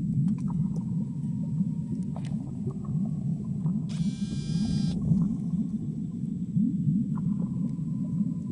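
Fire burning under a metal tray of cashew nuts roasting in their shells: a steady low rumble. About four seconds in, a high pitched call lasting about a second sounds over it.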